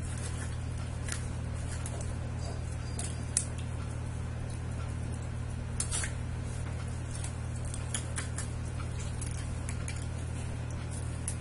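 Kitchen knife cutting and scraping at a raw fish's gills and throat over a bowl of water, with a few scattered sharp clicks and small wet crunches. A steady low hum runs underneath.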